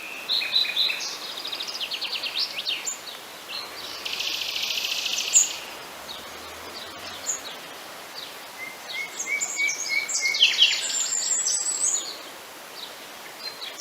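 Several birds singing outdoors: quick chirps and trills, with a dense rapid trill about four seconds in and another burst of chirping near the end.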